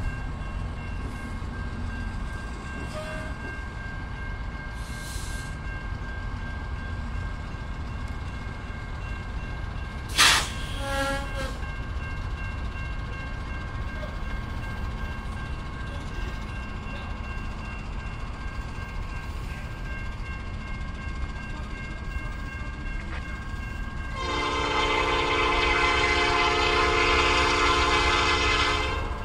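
Approaching Norfolk Southern freight train's lead locomotive sounding one long horn blast of about five seconds near the end, a chord of several notes, over a steady low rumble and a steady high ringing from the grade-crossing signal. A single sharp clang with a brief ring stands out about ten seconds in.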